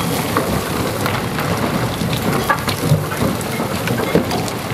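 Low rumbling from a Herrenknecht tunnel boring machine cutting through the rock just behind a shotcrete portal wall, with a steady patter of small clicks and crackles and a few sharper ticks as the concrete and loose stone crumble.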